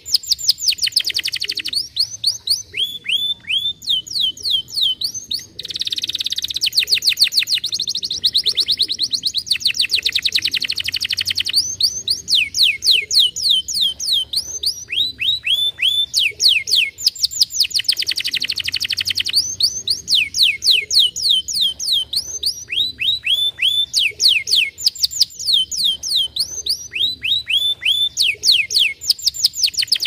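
Domestic canary singing a long, unbroken song of fast trills: runs of repeated falling notes, each run a second or two long at its own pitch, with denser rolling passages in between.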